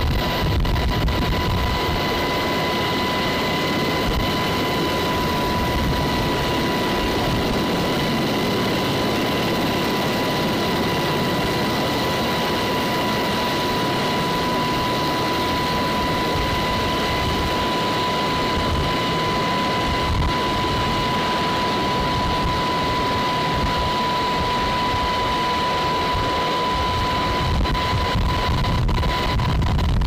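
UH-60 Black Hawk helicopter hovering, heard from its open cabin door: a loud, steady rush of rotor and engine noise with a constant high whine running through it.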